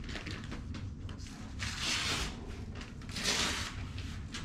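Rustling and handling noises, with two louder rustles about two and three seconds in.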